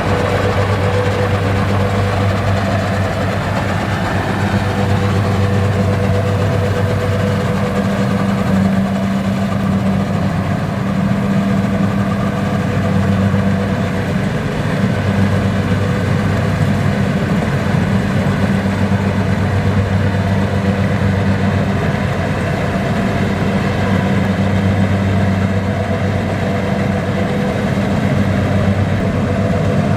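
Kubota combine harvester running steadily, a constant low engine drone with machinery noise over it.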